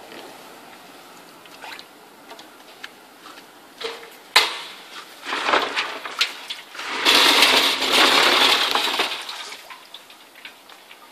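Metal clanks and rattles as parts of a wet-and-dry vacuum cleaner are handled and fitted onto its stainless steel drum, with one sharp knock about four seconds in. Then comes a loud rushing noise that lasts about two seconds.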